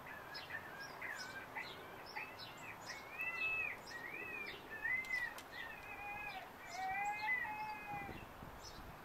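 Songbirds singing: a run of clear, arching whistled notes one after another, with higher short chirps over them and a few lower whistles in the second half.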